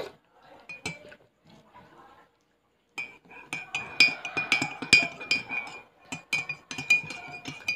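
Metal spoon stirring coffee in a ceramic mug, clinking rapidly against the sides with a ringing tone, starting about three seconds in.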